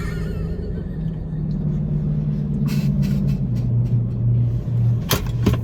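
Car engine running with a steady low hum that drops slightly in pitch about halfway through, and a sharp click near the end.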